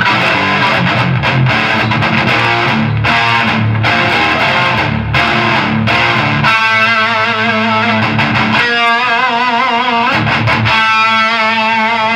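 Electric guitar played with heavy distortion through a Marvelous Engine overdrive pedal: a chugging low chord riff, then, about halfway through, held lead notes with a wavering vibrato.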